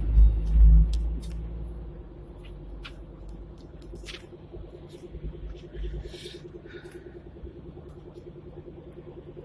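Hong Kong double-decker tram heard from inside the lower deck: a heavy low rumble in the first second and a half, then a steady low hum that takes on a fast, even pulsing from about halfway, with scattered light clicks.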